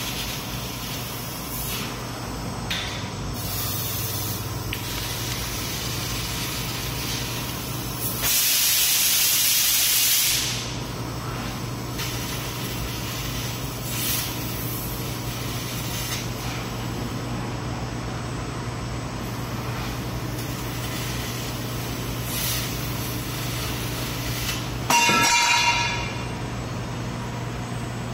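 Fiber laser tube-cutting machine cutting a steel H-beam: a steady low hum under a continuous hiss of cutting gas and spraying sparks. Louder gas blasts come about eight seconds in (lasting about two seconds) and near the end, the last with a short whistling tone.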